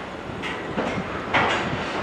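Heritage passenger carriages rolling away over rail joints and points, their wheels clacking over a steady rumble, with the loudest clack about a second and a half in.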